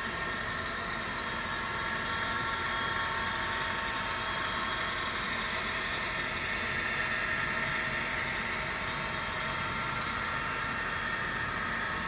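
Model train of Pennsylvania Railroad GP diesel units hauling freight cars past, a steady running sound with a high whine that holds even throughout.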